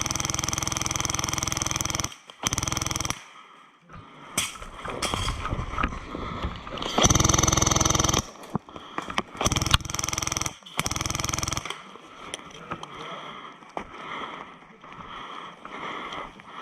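Electric airsoft gun firing full-auto, a steady motor-driven buzz. One long burst stops about two seconds in, followed by several shorter bursts; the firing dies away about two-thirds of the way through.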